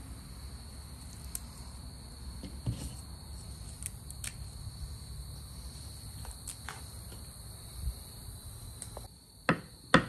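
Kitchen knife chopping fresh parsley on a bamboo cutting board, with two sharp chops near the end, after soft scattered ticks of leaves being picked off the stems. A steady high-pitched whine and a low hum run underneath.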